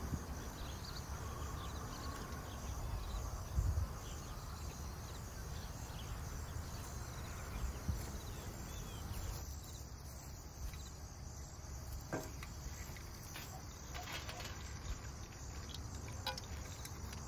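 Insects chirping steadily in the background, with a low rumble in the first half and a few light clicks or knocks in the second half.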